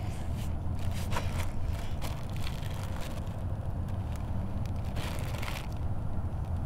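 A clear plastic bag crinkling as it is handled, in bursts early on and again about five seconds in, over a steady low rumble.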